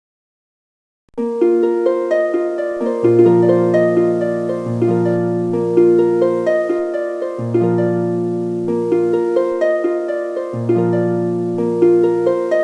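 Instrumental background music of quick plucked notes over held low notes. It starts about a second in, after a moment of silence.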